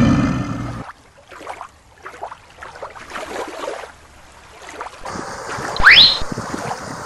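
Light water and handling noise from shallow water, after a low rumble with a held tone cuts off about a second in. About six seconds in a quick rising whistle-like tone sounds over a thump, over a steady hiss.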